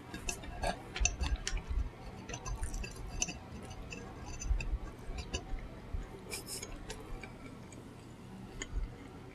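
A person eating mac and cheese close to the microphone: irregular wet mouth clicks and lip smacks while chewing, with a few soft low thumps.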